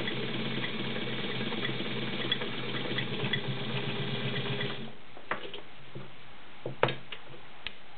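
Vintage all-metal White model 265 sewing machine with its 1.3 amp motor running as it sews, a steady motor hum under the rapid chatter of the needle mechanism, stopping about five seconds in. A few sharp clicks follow.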